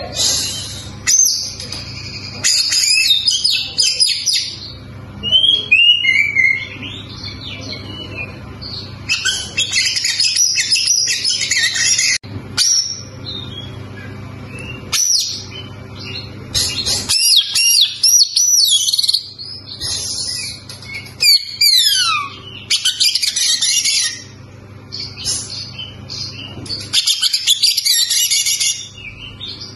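Oriental magpie-robin singing vigorously: a varied run of loud whistles, rapid trills and chatters in phrases broken by short pauses, with a quick steeply falling whistle past the middle.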